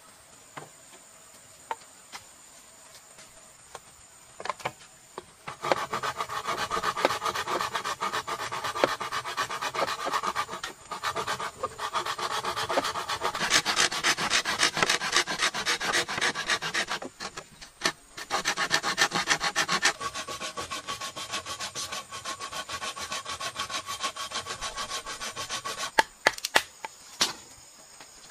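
Rapid rasping strokes of a blade working on bamboo, in three long runs broken by short pauses. A few sharp knocks follow near the end.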